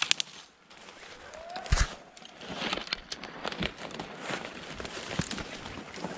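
Footsteps pushing through dry brush and leaves, with crackling and rustling throughout and a sharp thump a little under two seconds in.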